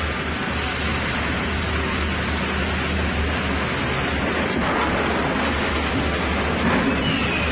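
Chainsaw mill running steadily, a loud even noise with a low engine hum beneath it. A short falling whine comes near the end.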